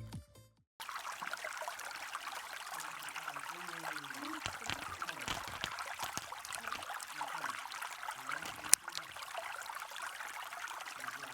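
A steady hiss like trickling water, with faint wavering pitched sounds underneath and one sharp click a little under nine seconds in.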